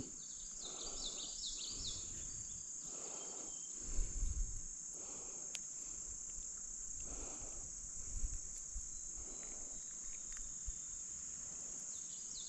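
Steady high-pitched insect chirring, crickets, with faint rustling and a low thump about four seconds in.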